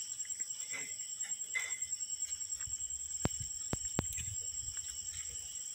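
Crickets chirring steadily at a high pitch, with three sharp clicks a little past the middle.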